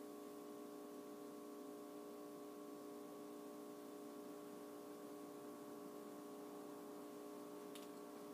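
Near silence: room tone with a faint steady hum, and a single faint click near the end.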